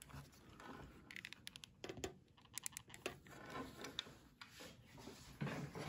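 Faint scattered clicks, scratches and rubbing as hands handle a carbon-fibre turbine tailpipe on a taped board, with a small cluster of clicks about two and a half seconds in.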